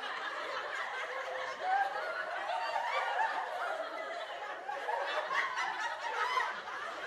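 Several voices laughing together, overlapping, thin and lacking low end as if played through a phone's small speaker.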